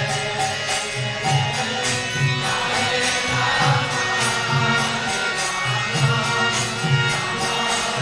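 Background devotional chanting music with a steady drum pulse about twice a second and regular high strikes, like hand cymbals, over the singing.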